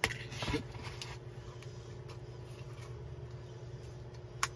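Handling noise as a MOLLE T-post strap is worked into a pouch's nylon webbing: small clicks and rustles in the first second and one sharp click near the end, over a steady low hum.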